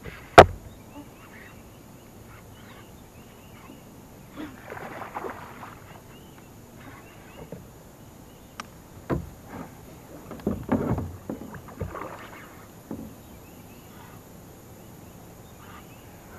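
Kayak paddling: a sharp knock about half a second in, then scattered paddle strokes swishing and splashing in the water, with a few small knocks, around the middle.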